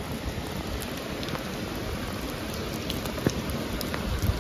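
Heavy downpour: a steady hiss of heavy rain, with scattered sharper taps of drops striking nearby surfaces.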